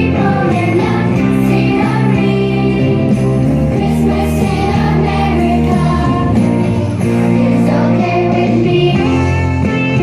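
A holiday song playing: steady music with singing.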